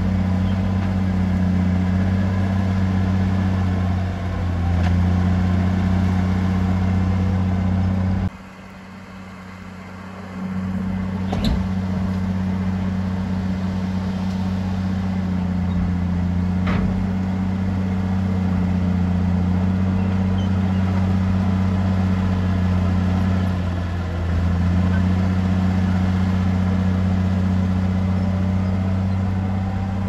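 Heavy diesel engine of earthmoving equipment running steadily with a deep, even hum. The engine sound drops away for about two seconds a little over a quarter of the way in. A sharp click comes just after it and another a little past halfway.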